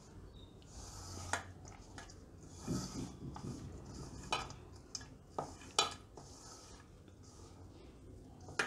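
A hand mixing crumbly roasted mawa with chopped nuts, grated coconut and raisins in a stainless steel bowl: soft rustling and scraping, with several sharp clicks against the steel scattered through.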